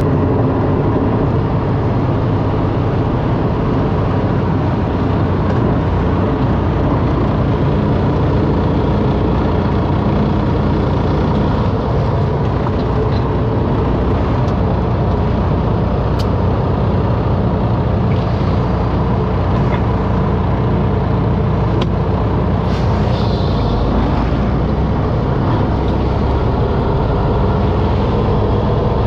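Semi-truck's diesel engine running steadily, heard from inside the cab while driving on a dirt road, with road rumble and a few faint clicks.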